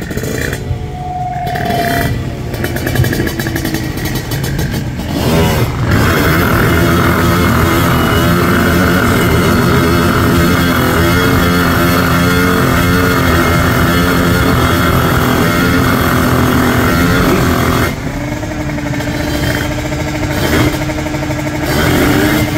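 Kawasaki Ninja drag bike engine revving hard on the start line, the pitch rising and falling, loudest for about twelve seconds in the middle, then settling to a steadier, slightly quieter note near the end.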